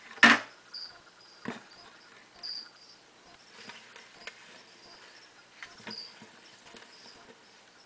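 A plastic bucket knocked and handled: one sharp knock right at the start, another about a second and a half in, then softer taps and scrapes as a hand works among baby snakes inside it. Short high chirps recur throughout.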